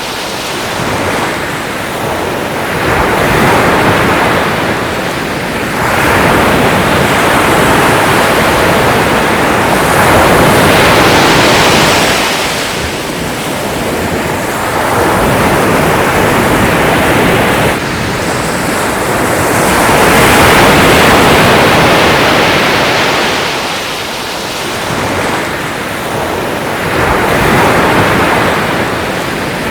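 Sea waves breaking and washing in, the noise swelling and fading again every few seconds.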